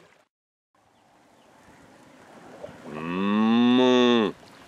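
A cow moos once, about three seconds in: one long call of about a second and a half that drops in pitch as it ends.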